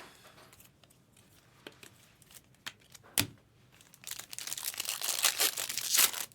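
A sharp tap about three seconds in, then about two seconds of crinkling and tearing as a sealed trading-card pack wrapper is ripped open.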